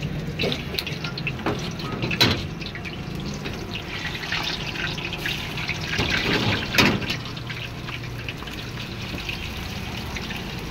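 Hot oil sizzling and crackling in iron woks as paneer cubes and vegetables fry, with two sharp metal knocks of a spatula against a wok, about two seconds in and again about seven seconds in.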